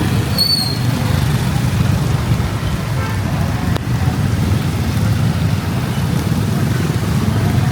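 Steady low rumble of road and traffic noise heard from a moving motorbike in city traffic, with a brief high-pitched tone about half a second in.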